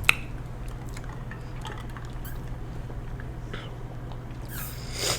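Close-miked chewing of crunchy shrimp tempura: small, faint crackles and crunches over a steady low hum, with one sharp click just after the start and a soft hiss near the end.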